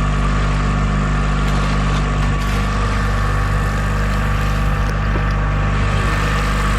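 Hired motorboat's engine running steadily at cruising speed, a constant low drone with water and air rushing past.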